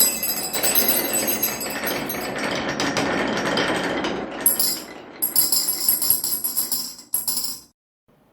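Many marbles rolling and clattering down a wooden HABA marble-run track, then clinking and ringing as they drop into a glass bottle from about four seconds in. The clatter stops abruptly near the end.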